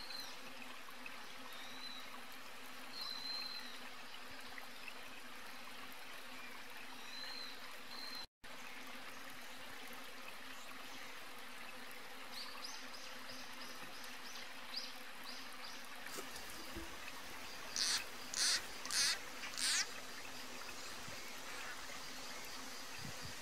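Outdoor wetland ambience: a steady insect hum with faint high chirps now and then, a brief cut to silence about eight seconds in, a run of soft clicks later on, then four loud pulses about half a second apart near the end.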